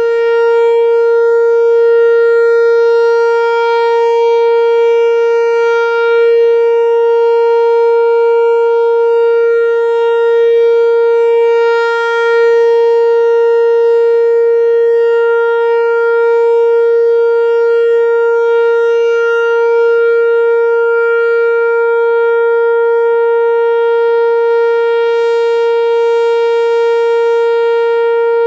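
Whelen WPS-4004 electronic outdoor warning siren sounding one steady, unbroken tone, rich in overtones, with no rise or fall in pitch.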